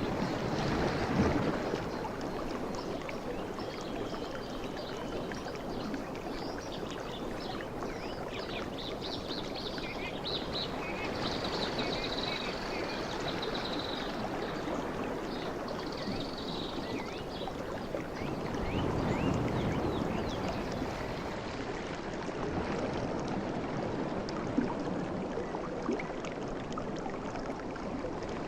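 Sea waves washing steadily onto the shore, swelling louder about a second in and again around two-thirds of the way through. Birds chirp high above the surf through the first half.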